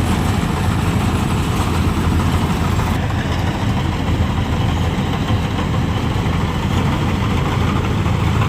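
Tractor engine running steadily at a constant speed, powering a tractor-driven paddy harvester.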